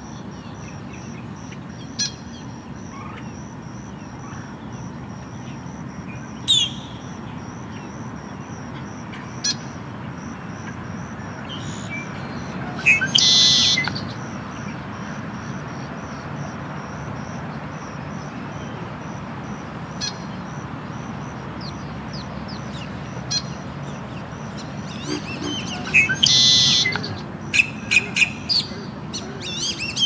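Male red-winged blackbird calling: scattered short, sharp high notes, two louder song phrases each ending in a burst about a second long, about 13 and 26 seconds in, and a quick run of sharp notes near the end.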